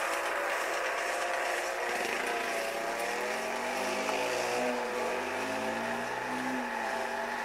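Motor of a coursing lure machine running steadily, its pitch wavering up and down. A deeper, gliding engine note joins from about two seconds in and fades out near the end.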